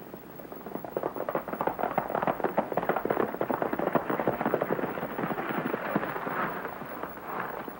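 Horses galloping in and pulling up: a rapid, uneven clatter of hooves on hard ground that grows louder after about a second and eases off near the end.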